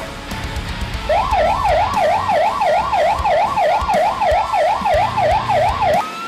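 Fire engine's electronic siren in a fast yelp, rising and falling about three times a second, starting about a second in; near the end it switches to a slow wail.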